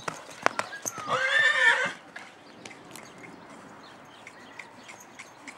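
Young grey PRE Andalusian stallion whinnying once, about a second in, a call lasting about a second that bends up and then down in pitch. Hoofbeats on the ground sound around it, sharper before the call and quieter after it.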